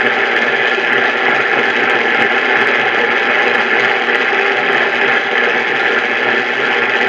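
Radio static: a steady hiss from a radio receiver, even in level throughout, with no voice or alert tones.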